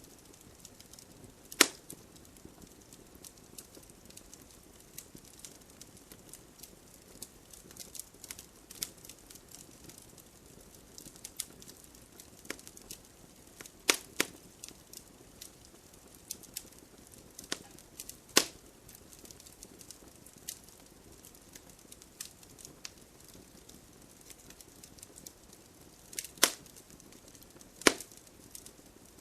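Wood campfire crackling: irregular small snaps over a faint steady hiss, with a few louder sharp pops scattered through, the loudest near the start and near the end.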